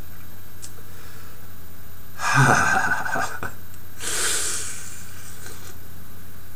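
A man's breathy reaction noises while eating a raw lemon piece: a loud, partly voiced exhale about two seconds in, then a hissing breath about four seconds in, as he reacts to the sourness.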